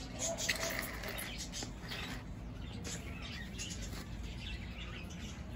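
Small birds chirping in the background while hands scoop and rustle dry-ish potting mix, giving a scattered gritty crackle.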